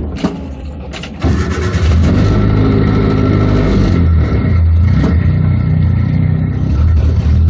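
Suzuki Samurai engine pulling away on a gravel track after a few knocks. From about a second in it revs up loudly, its note rising, falling back and rising again.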